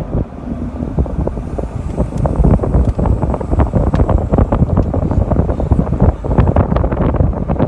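Wind buffeting the phone's microphone: a loud low rumble, thick with crackling.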